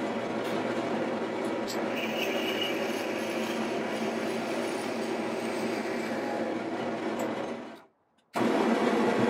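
Wood lathe running while a hand-held Forstner bit bores into the end of a spinning black walnut blank, a steady noisy cutting sound over the lathe's hum. The sound fades out just before eight seconds, cuts to silence for about half a second, then comes back louder as boring starts again.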